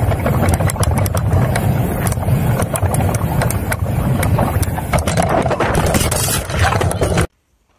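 Mountain bike ridden fast over rough dirt trail, heard close on a ride-along camera: wind buffeting the microphone over tyre noise and rapid clattering rattles of the bike. It cuts off suddenly near the end.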